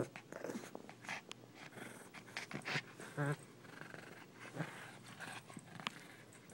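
Pomeranian growling and panting as it tugs on a toy, with several short growls among light scuffing and rustling.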